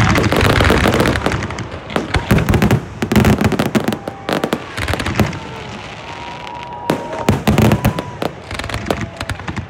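Aerial fireworks: a loud burst at the start, then repeated shell bangs and dense crackling over the following seconds.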